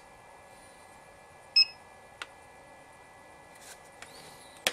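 Orlit Rovelight RT 400 studio strobe giving one short electronic beep about a second and a half in, followed by a small click.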